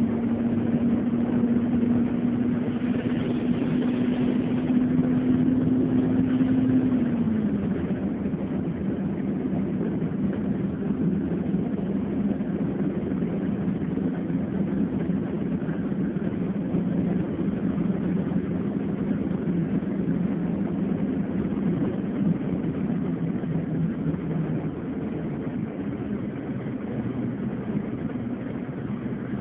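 Engine and road noise of a moving vehicle heard from inside the cabin: a steady engine hum that drops in pitch about seven seconds in, then sinks slowly lower.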